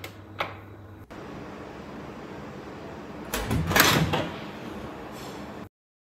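Two light clicks from the Samsung dishwasher's controls, then over a steady hiss the dishwasher door is pushed shut with a thud about three and a half seconds in. The sound cuts off suddenly near the end.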